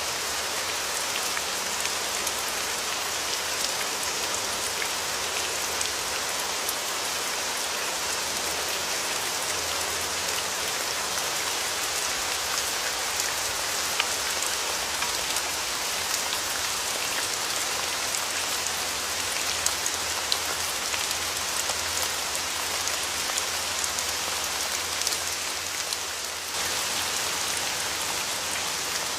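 Steady rain falling, an even hiss with many individual drops ticking sharply on top. Near the end the sound dips briefly, then jumps straight back.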